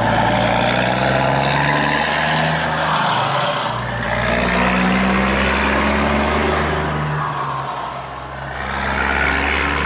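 Heavy truck engine running steadily, with slow rises and falls in pitch and a brief drop in loudness about eight seconds in.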